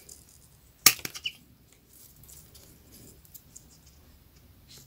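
Scissors snipping through a rolled newspaper tube: one sharp cut a little under a second in, followed by a smaller click and faint rustling of the paper tubes.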